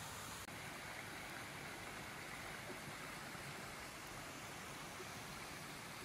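Steady sound of a mountain stream running over small stepped concrete weirs and low cascades.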